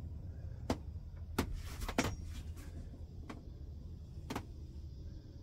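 A handful of sharp knocks and clicks, about five spread over the few seconds, with a brief rustle, over a steady low rumble.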